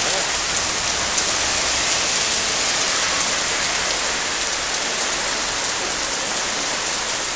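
Heavy rain pouring steadily onto the street and pavement, a dense, even hiss.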